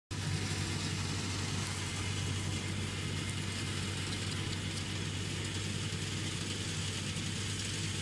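Tractor diesel engine running at a steady speed, a constant low hum with a hiss over it.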